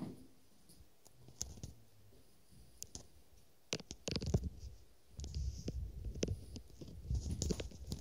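Footsteps and knocks from a phone being handled as the person filming walks through a derelict building, with a low rumble. The first few seconds hold only faint room tone and a few scattered clicks; the steps and knocks start a little over halfway in and come in irregular bunches.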